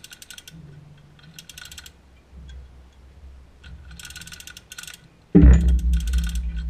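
Hand chain hoist being pulled to lift a heavy electric motor, its ratchet pawl clicking in several short rapid bursts as the hand chain is hauled. About five seconds in, a sudden loud low thump is followed by low rumbling and more clicking.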